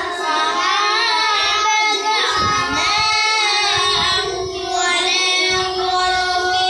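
A boy's voice chanting Quran recitation in melodic qirat style, with long held notes that bend up and down.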